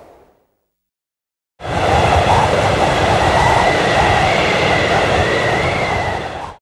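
Strong wind with a deep rumble and a wavering high whistle, starting abruptly a little over a second in and cutting off suddenly near the end. Just before it, the tail of a softer gust fades out.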